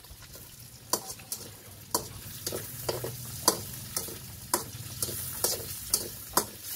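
Spatula stirring and knocking against a wok about twice a second, over the steady sizzle of chicken and pork browning in the pan.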